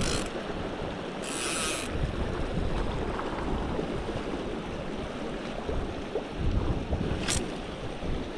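Shallow river water rushing over a rocky riffle, with gusts of wind on the microphone. Two brief high hisses cut through, about a second in and near the end, from the fly line moving through the air and guides during the cast.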